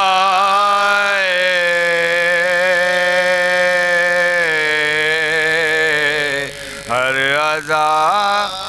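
Men chanting soz, the Shia elegiac lament, unaccompanied: one long wavering note held for about six seconds, a short break, then a new phrase that slides up and down in pitch.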